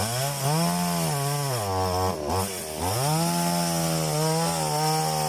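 Chainsaw running at high revs. Its pitch drops and dips for about a second midway as the chain takes load in the wood, then climbs back and holds steady.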